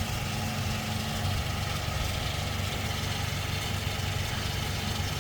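Toyota Tacoma pickup engine idling steadily.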